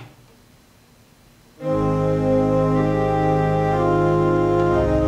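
Allen ADC-420 digital church organ playing slow sustained chords on its 8-foot principal stop, played down an octave, with deep bass notes. The organ comes in about one and a half seconds in, after a short click at the start.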